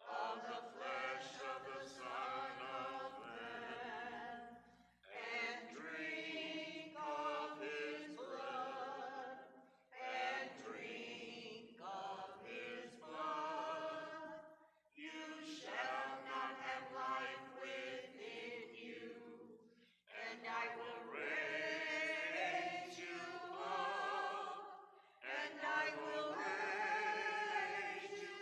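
Church choir singing an offertory hymn, in phrases of about five seconds each with short breaths between them.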